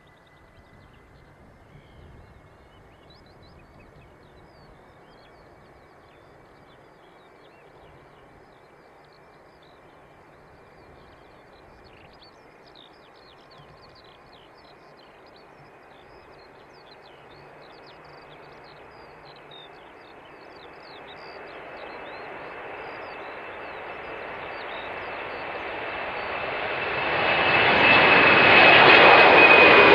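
Four jet engines of a Boeing 747-400, faint at first and growing steadily louder as the airliner approaches, with a high whine that rises slightly in pitch and a rushing noise that swells sharply over the last few seconds.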